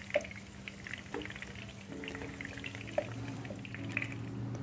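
Hot oil sizzling and crackling in a nonstick frying pan after shallow-frying potatoes and boiled eggs, with a few light clicks scattered through.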